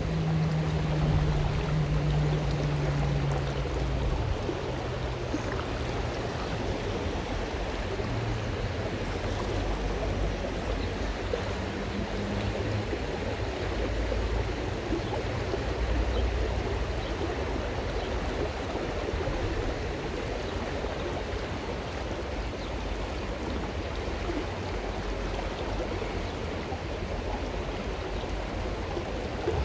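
Steady rush of river water flowing over a shallow stony bed, with a low rumble underneath. A low steady hum fades out in the first few seconds.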